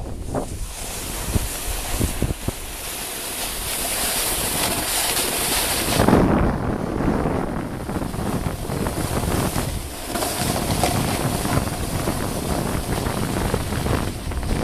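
Wind buffeting the microphone and the steady rushing hiss of a snowboard sliding over snow while riding downhill, with a few light knocks in the first couple of seconds.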